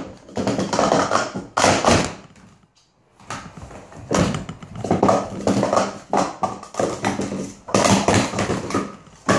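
Plastic Speed Stacks sport stacking cups clattering in fast runs of clicks and knocks as they are stacked up and brought down on a stack mat, with a short pause about two and a half seconds in before the next run starts.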